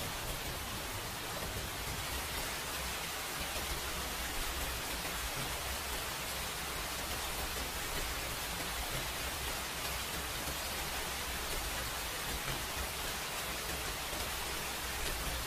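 A steady, even hiss with a low rumble underneath; no separate eating sounds stand out from it.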